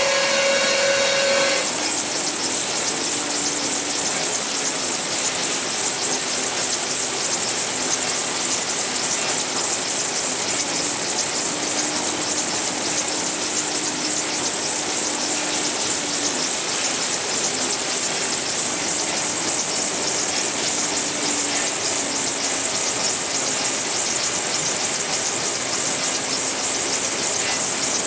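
Steam-engine-driven portable sawmill running: a steady, loud, noisy whirr with a strong high hiss and a faint wavering hum beneath it. A pitched tone with overtones sounds at the start and stops about a second and a half in.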